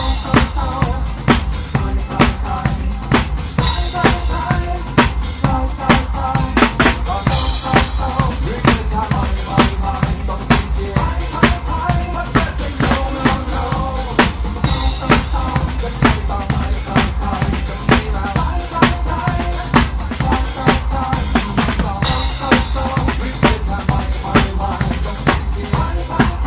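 Live band music led by a drum kit: a steady, fast beat of kick and snare over bass and other instruments, with a cymbal crash every several seconds.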